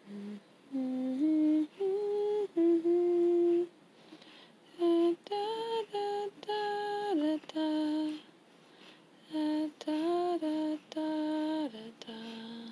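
A voice humming a slow lullaby to a sleeping baby: held notes that step up and down in short phrases, with brief pauses between them.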